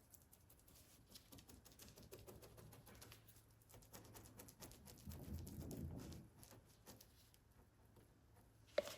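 Faint, irregular light tapping and rustling of fiberglass lay-up work, a brush dabbing resin down into fiberglass mat, over a faint low hum. It is slightly louder for about a second around the middle.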